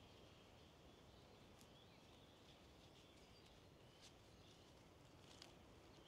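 Near silence: faint woodland ambience with a few faint distant bird chirps and soft ticks.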